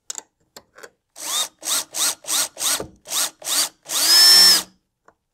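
Power drill with a driver bit tightening a mounting-plate bolt down into a lock nut. It runs in about eight short trigger pulls, each spinning up in pitch, then one longer, louder run near the end as the bolt is snugged down.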